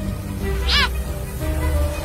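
Background music with long held notes over a low rumble, and one short high call rising and falling in pitch about three quarters of a second in.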